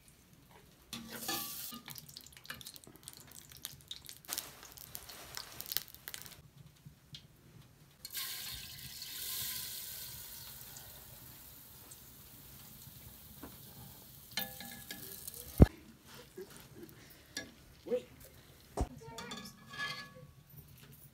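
Steel ladle stirring and scraping melting ghee in a metal pot, with clicks against the pot. About eight seconds in, sugar is poured into the hot ghee with a hiss that fades over several seconds. Later the ladle strikes the pot sharply, loudest once and again a few seconds after, as stirring goes on.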